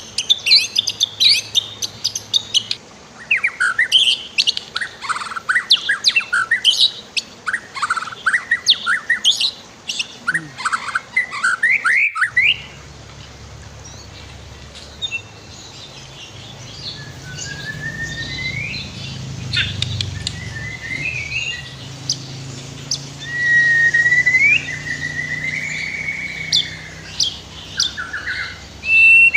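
White-rumped shama (murai batu) singing: dense, rapid runs of chirps and clear whistles, then after a sudden break about twelve seconds in, sparser whistled phrases including a rising whistle and a longer warbling phrase, over a faint low hum.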